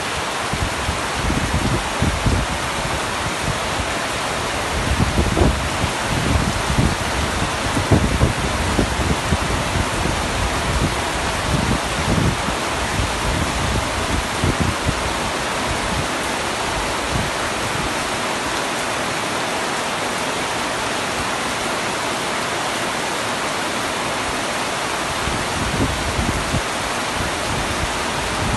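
Heavy rain falling steadily on a tent roof: a dense, even hiss, with low rumbles swelling and fading through the first half and again near the end.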